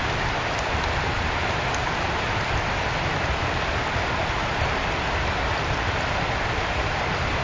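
A steady, even hiss of noise with a low rumble underneath and a few faint ticks, unchanging throughout.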